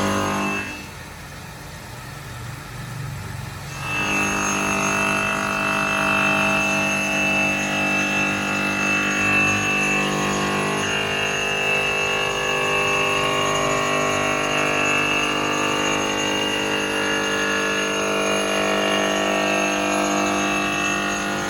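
Electric granite-cutting saw with a 7.5 kW cutting motor running with a steady high whine. About a second in the sound drops for roughly three seconds, then comes back to full level and holds steady.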